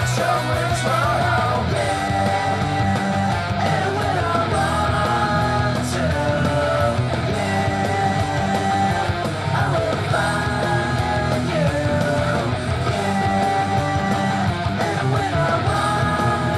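Hard rock song with distorted electric guitar, bass and drums, an electric guitar playing along over the track, with long held notes or sung lines.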